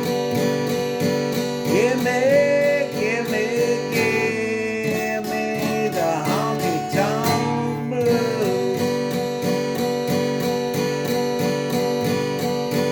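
Acoustic guitar music: a steady strummed rhythm, with a lead line of sliding, bending notes over it from about two seconds in to about nine seconds.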